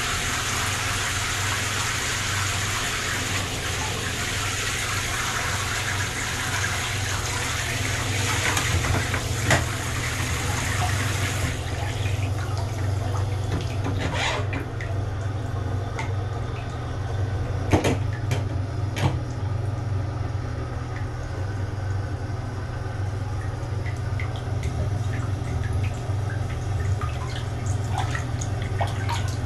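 Tap water running into a bathtub as a steady hiss that cuts off abruptly about a third of the way through. After that a few sharp drips and splashes of water stand out over a steady low hum.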